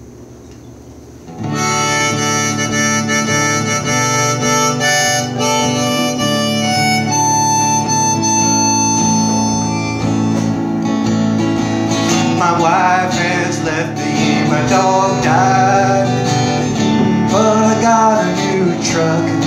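Harmonica in a neck rack playing over acoustic guitar as an instrumental song intro, starting about a second and a half in; from about halfway the harmonica notes bend and wail.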